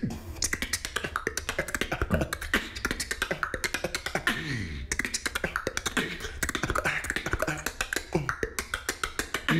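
Beatboxing done without the lips, a mouth guard holding them back: fast, crisp percussive clicks and hisses over bass sounds that fall in pitch several times.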